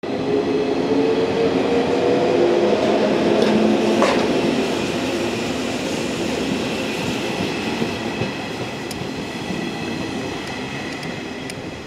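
JR West 115 series electric train pulling out of the station. Its traction motors whine in a slowly rising pitch as it picks up speed, with a few clicks from wheels crossing rail joints. The sound fades as the train moves away.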